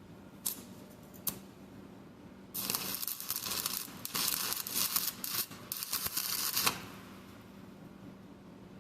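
Welding arc crackling in several short bursts, after two brief blips as the arc is struck, while weld is laid onto a broken bolt stub to back it out of the engine block.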